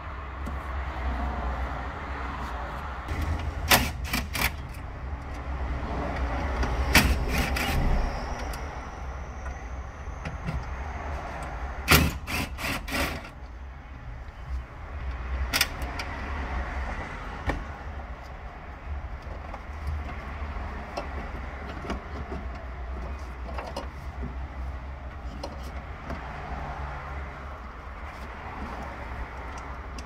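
Sharp clicks and clacks from dismantling a Honda CR-V's door to get at the lock motor, coming in short clusters about 4, 7, 12 and 15 seconds in, over a steady low rumble.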